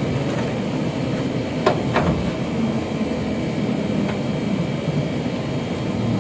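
Diesel generator-set engine running steadily. Two sharp metallic clicks come about two seconds in, a third of a second apart, as the generator's cover panel is screwed down.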